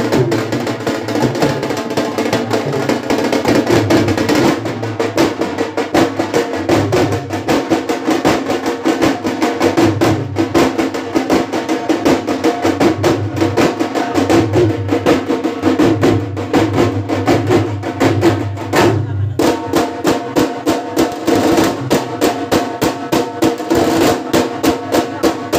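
A group of dhol drums beaten with sticks in a fast, steady rhythm of rapid strokes. The beats become sharper and more evenly pulsed near the end.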